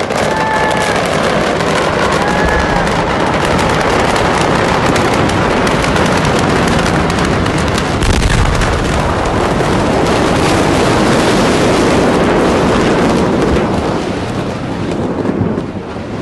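Large fire crackling and popping in rapid, dense bursts, with a deep blast about eight seconds in as a fireball erupts. The Beirut port explosion.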